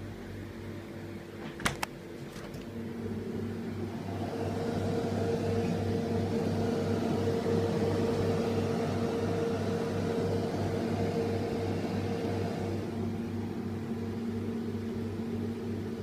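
Maytag frost-free refrigerator running: a steady mains hum from the compressor, with the rushing air of the fan growing louder for several seconds in the middle, then easing. A quick double click sounds just under two seconds in.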